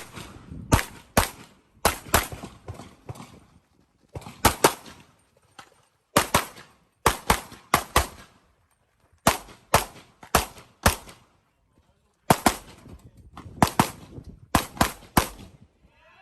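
Handgun shots in a practical-shooting course of fire: quick pairs and short strings of sharp reports, each with a short echo, broken by pauses of up to about a second between strings.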